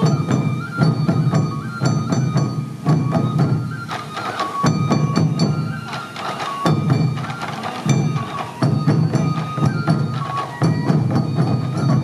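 Sansa odori barrel drums beaten in a steady, driving rhythm by a troupe of dancers, with a high melody line of short held notes over them.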